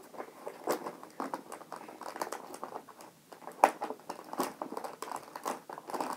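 Gift-set packaging crinkling and scraping under the hands, with many irregular clicks, as someone struggles to get an item out of it.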